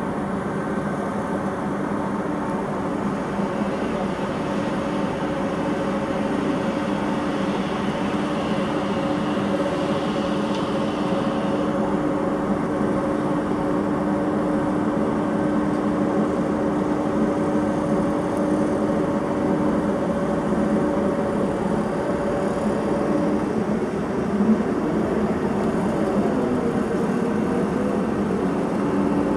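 Steady mechanical droning hum with a few held low tones over a rumbling background; about 25 s in, one tone briefly dips and rises again in pitch.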